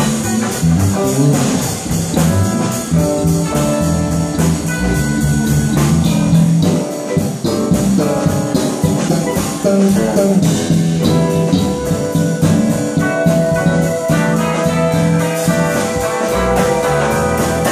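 Live band playing: electric guitar, electric bass and drum kit, with a steady beat and a moving bass line.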